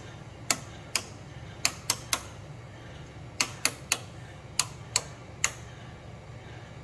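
Wall light switches being flipped off one after another: about a dozen sharp clicks, some in quick pairs and threes, as the room's lights go out.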